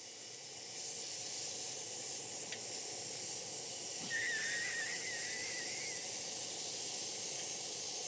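Kangaroo steak sizzling on a hot griddle over a portable gas stove: a steady frying hiss as the meat shrinks in the heat, getting a little louder about a second in.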